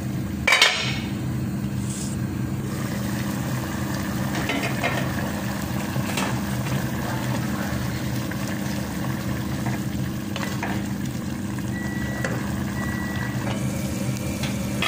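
Pot of potato-and-chicken stew boiling on the stove, a steady bubbling hiss, with one sharp metal clank about half a second in.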